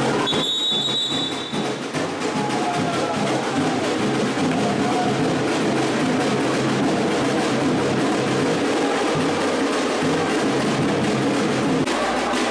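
Drum-driven music with a steady beat, loud throughout. A whistle blows briefly near the start.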